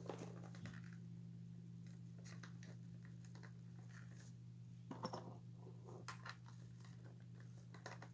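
Faint clicks and rustles of small plastic parts being handled, a small cluster of louder clicks about five seconds in, over a steady low electrical hum.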